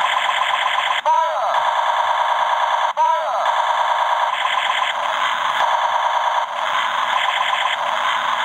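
Electronic sound effect from a battery-powered knockoff Gobots Convertible Laser Gun toy: a rapid, buzzy, pulsing rattle like a machine gun, played through the toy's small speaker. Twice, at about one and three seconds in, it cuts out for an instant and restarts with a quick falling chirp.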